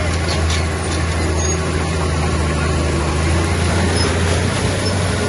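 Heavy earthmoving machine's diesel engine running steadily with a low, even drone, with a few faint clanks about half a second in.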